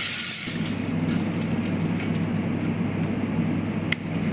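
A wire whisk beating eggs and milk against a stainless steel pan, stopping about half a second in. Then a steady low machine hum.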